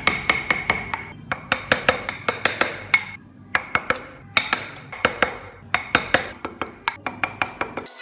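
Quick taps of a mallet on a carving chisel cutting grille slots into a wooden model car, about five a second in short runs with brief pauses. The first second carries a faint ring after the taps.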